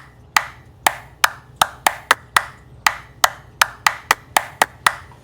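Percussive music: a syncopated pattern of sharp, wood-block-like hits, about three a second, each with a short ring.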